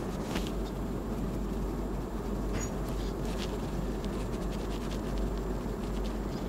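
Fluffy makeup brush buffing liquid foundation into the skin of the face, a soft scratchy brushing with a few faint strokes over a steady background hiss.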